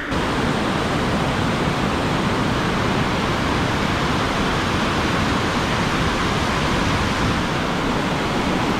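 Loud, steady rush of water pouring over a river dam.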